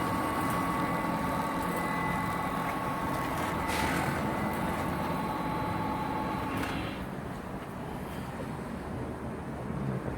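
Chicken tenderizing and pressing machine running, its motor giving a steady whine over mechanical noise. The whine stops about seven seconds in, leaving a lower rumble, with a short rush of noise a few seconds before that.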